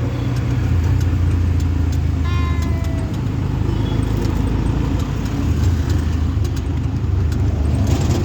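Auto-rickshaw engine running steadily during a ride, a low continuous hum. A little over two seconds in, a short pitched sound falls briefly in pitch over it.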